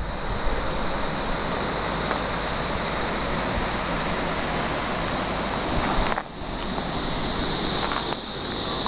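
Wind buffeting the camera microphone over a steady rushing noise, with a thin, steady high whine throughout. The sound drops away sharply for a moment about six seconds in.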